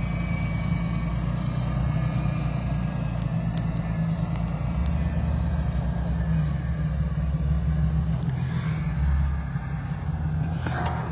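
Jeep engine running at low revs, a steady low rumble that gets heavier for a few seconds in the middle. A couple of short knocks near the end.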